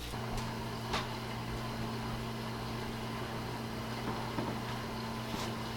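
Steady low mechanical hum with a faint tick about a second in.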